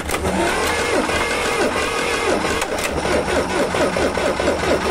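T-40 tractor's air-cooled diesel engine being cranked by its starter without firing, a steady churning that starts suddenly: the engine will not catch, which the men put down to a lack of fuel.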